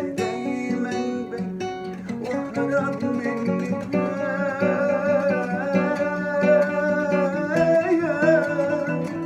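Instrumental passage of an Arabic pop song on a plucked string instrument. From about two seconds in, a wordless, wavering melodic line is held over the plucking, which fits a vocalise.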